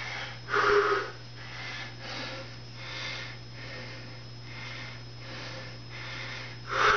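A man breathing hard and rhythmically, about one breath a second, catching his breath after a set of push-ups; two breaths, about half a second in and near the end, are louder. A steady low hum runs underneath.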